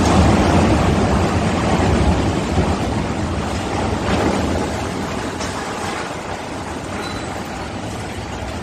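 Steel container gantry crane collapsing after being struck by a ship: a loud crashing rumble of falling steelwork that peaks at first and dies away over several seconds, with a couple of fainter knocks later on.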